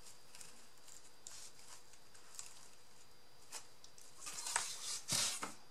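Small handling sounds of paper or card crafting: faint scattered clicks and rustles, with a few louder rustles about four to five seconds in.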